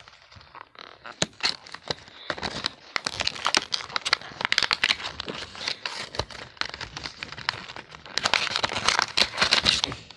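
Cardboard toy box and its clear plastic packaging being handled and torn open: irregular crinkling, crackling and tearing, loudest near the end.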